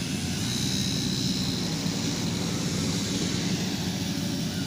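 Several ATV (quad bike) engines running together in a steady drone, with a thin high whine over the first couple of seconds.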